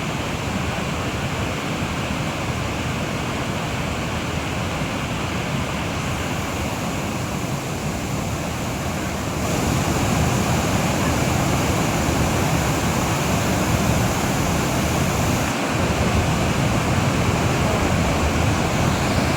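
Waterfall's steady rush of falling water, getting louder about halfway through.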